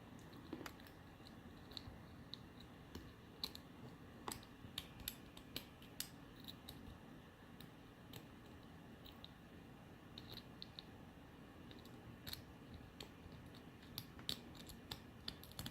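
Faint, irregular small clicks and scrapes of a paperclip pick working the pin tumblers of a cheap Master Lock padlock, held under tension by a bent safety-pin tension wrench.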